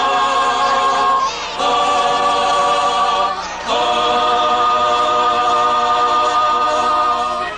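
A choir singing three long held chords, with short breaks between them; the last is held for almost four seconds.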